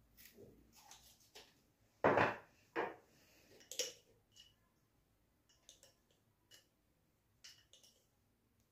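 Glass spice shakers handled on a kitchen countertop: a few sharp knocks and clinks, the loudest about two to four seconds in, then lighter ticks.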